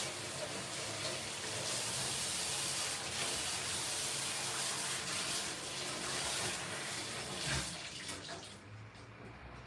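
Kitchen tap running steadily into the sink as dishes are washed under it, shut off near the end.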